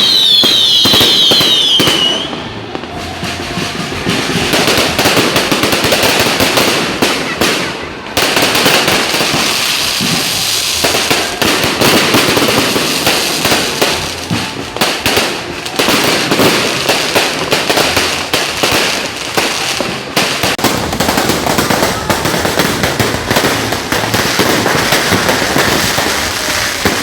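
Fireworks going off at close range: a dense, continuous run of bangs and crackles, with a falling whistle in the first two seconds.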